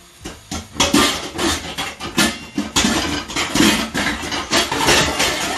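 Dishes, pots and cutlery clattering and clinking at a kitchen sink in quick, irregular knocks, starting about a second in.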